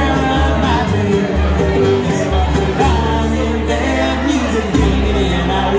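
Bluegrass string band playing live: upright bass, acoustic guitar, mandolin and five-string banjo, with voices singing.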